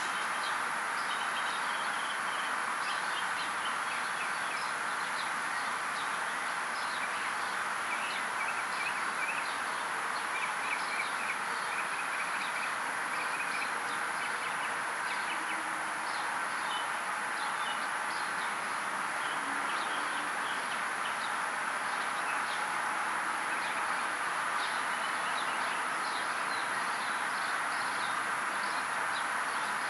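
Outdoor ambience: small birds chirping repeatedly against a steady background hiss.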